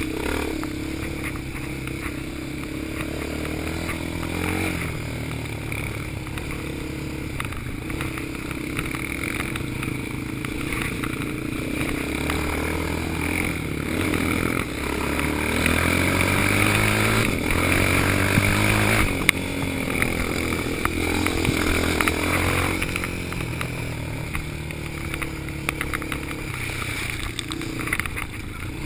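Yamaha Raptor quad's single-cylinder engine running under way, its pitch rising and falling as the throttle opens and closes, loudest about halfway through.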